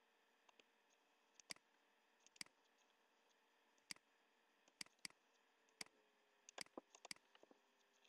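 Faint computer mouse clicks: a dozen or so short clicks, some in quick pairs, over a faint steady hum.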